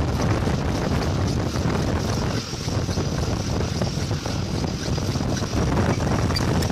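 Vertical milling machine running with a boring bar in the bush bore of a forklift steering axle housing: a steady, rough machine noise, boring out the worn axle bore. The noise dips briefly about two and a half seconds in.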